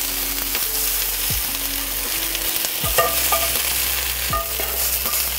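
Sliced peppers, onions and courgette sizzling in a hot frying pan while a spatula scrapes them out against the pan, with a few short knocks of the spatula on the metal.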